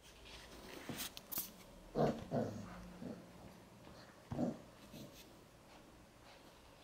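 Puppies playing: a handful of short puppy noises and scuffles, the loudest two close together about two seconds in and another just after four seconds, with quiet rustling between.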